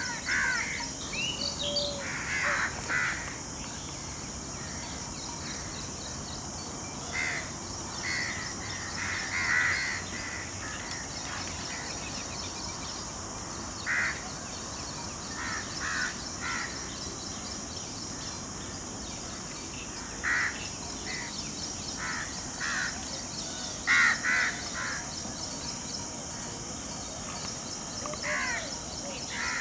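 Crows cawing, with short harsh calls repeated in irregular bunches, over a steady high-pitched buzz.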